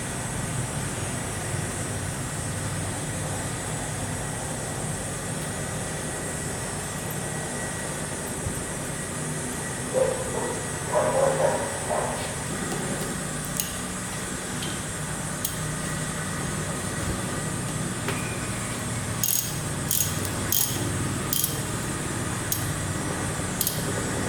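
Light metallic clinks and taps of tools and parts, scattered and coming closer together near the end, over a steady background hum.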